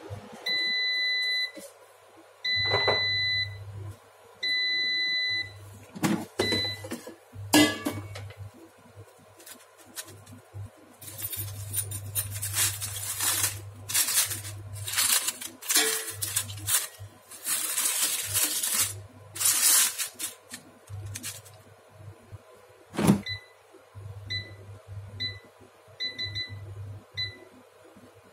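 Digital air fryer signalling the end of its cooking cycle with three long beeps. The basket then clunks out, tongs scrape and rustle on parchment paper as the breaded chicken breasts are turned, the basket goes back in with a thunk about 23 seconds in, and a string of short beeps follows as the touch-panel buttons are pressed to set a new temperature and time.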